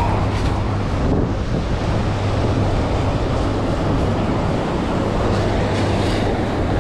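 Steady rush of surf with wind buffeting the microphone.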